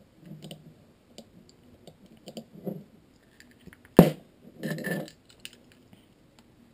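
Light clicks, clinks and rustles of a Hi-Capa pistol's small parts and a Phillips screwdriver being handled on a table, with one sharp knock about four seconds in.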